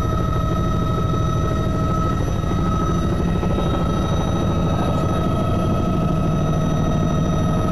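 Helicopter rotor and engine running steadily, heard from inside the cabin: a low rapid rotor beat with a steady high whine over it.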